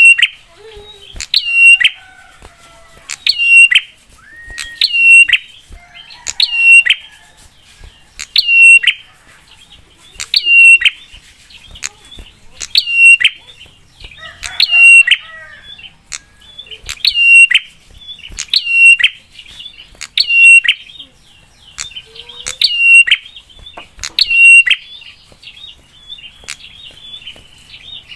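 Prinia (prenjak) giving a sharp, loud call over and over, about one every one and a half seconds, each a quick high note that drops in pitch. Fainter bird chirps sound between the calls.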